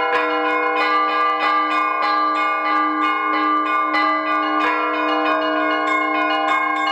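Church bells ringing: several bells of different pitches are struck in quick succession, about two to three strikes a second, over the steady hum of a deep bell.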